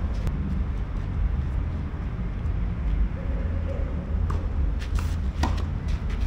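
Steady low outdoor rumble on the camera microphone, with a few short sharp taps about four to five and a half seconds in.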